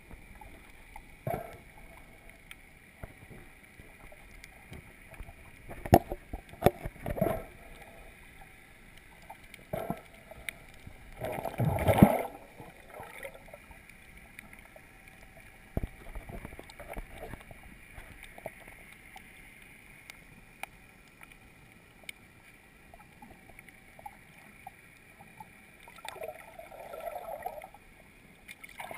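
Muffled underwater water noise picked up through a GoPro's waterproof housing as it is held beneath the surface. A low steady hiss and a faint constant high tone run under several short bursts of rushing, bubbling water; the loudest burst comes about twelve seconds in.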